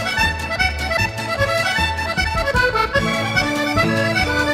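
Background music: a traditional accordion tune with a steady beat in the bass.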